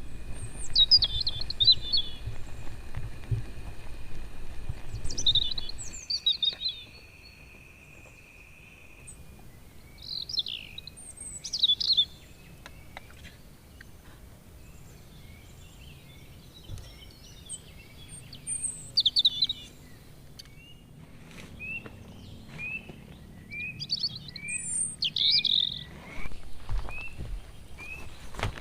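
Forest birds singing: clear phrases of quick falling notes every few seconds, and later a run of short repeated chirps, about two a second. A low rumble underlies the first six seconds.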